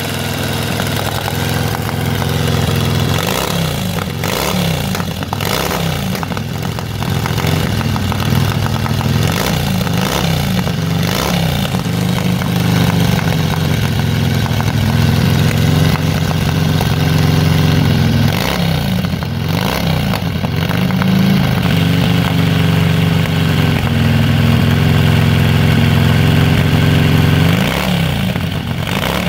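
Antique board-track race motorcycle engine running hard, blipped on the throttle so that its pitch rises and falls several times, as it is being warmed up through a heat cycle.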